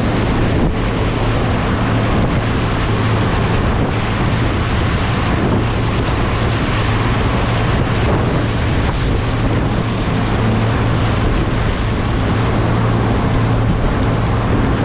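Toyota Land Cruiser Troopy wading through deep, flowing floodwater in low-range second gear. Its bow wave rushes and splashes along the side of the vehicle over a steady engine hum, with wind noise on the microphone.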